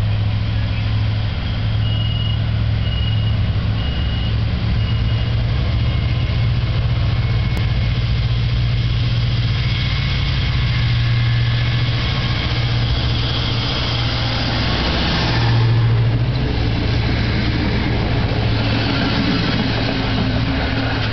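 Diesel railbus engine running with a steady low drone. About 15 seconds in the noise swells briefly as the railbus comes close, then settles back into the engine drone.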